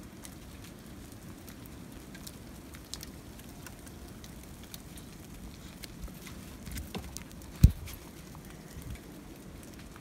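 Steady light patter of falling icy snow on the deck and doghouse, with scattered faint ticks. One sharp thump comes a little past halfway.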